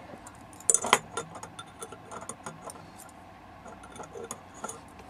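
Thin metal rods of a folding camping grill rack clicking and ticking against the crossbar as they are dropped one by one into its slots, with a louder metallic clatter about a second in.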